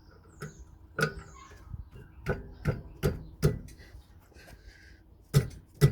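Half-inch drive socket ratchet clicking in short sharp strokes on a brake bolt, irregular at first and then about two to three clicks a second near the end. The bolts are done up tight.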